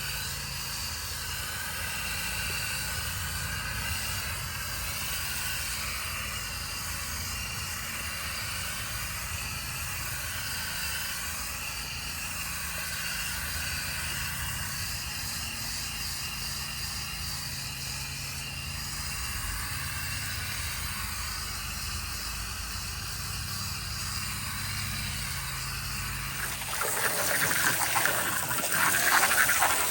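Garden hose spraying water to rinse coil cleaner out of a clogged AC condenser coil: a steady hiss of running water that turns louder and harsher near the end.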